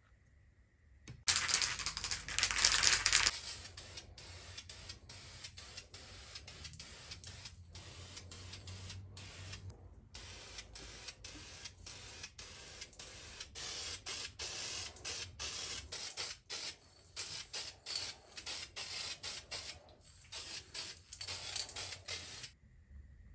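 Aerosol spray-paint can hissing as it sprays: a loud burst of about two seconds, then many shorter bursts with brief breaks between them, stopping shortly before the end.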